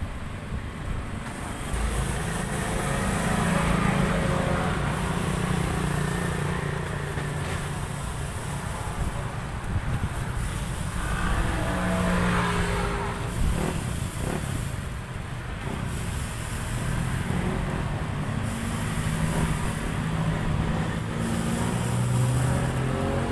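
Road traffic: vehicle engines running past in a steady drone that swells and fades over several seconds, with faint voices in the background.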